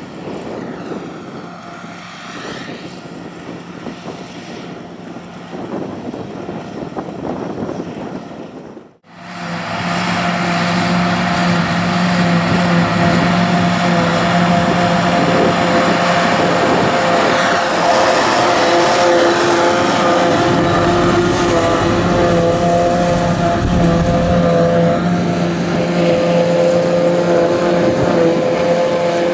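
Tractor engines under load with a trailed JF forage harvester chopping and blowing grass, making a steady engine sound with several held whining tones. The sound is quieter and windier at first, then louder and closer after a sudden break about nine seconds in.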